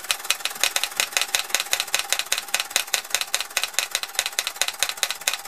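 Pair of antique Bing toy steam hammers, belt-driven by a toy steam engine, tapping in a rapid, even rattle.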